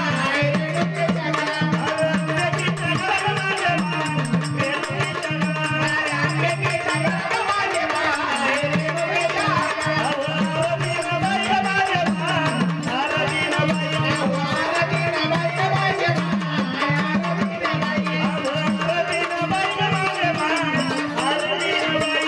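Marathi folk devotional music of a Vaghya-Murali troupe: a small hand drum and a jingling rattle keep a fast steady beat under a melody that repeats every couple of seconds.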